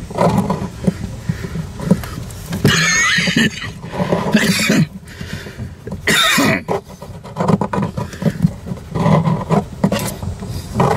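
Brass T-handle boat drain plug being twisted and worked into the hull's drain hole: irregular scraping and handling noise with several short squeaky bursts, the loudest around three, four and a half and six seconds in.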